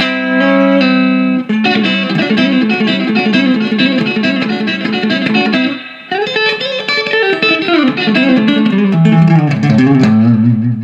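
Electric guitar playing a fast country chicken-pickin' lick, hybrid-picked with pick and fingers, with a brief pause about six seconds in and a few held low notes near the end before the sound cuts off suddenly.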